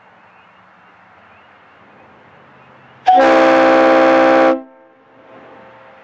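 One loud air-horn blast, a steady chord of several notes lasting about a second and a half, starting about three seconds in and cutting off with a short echo.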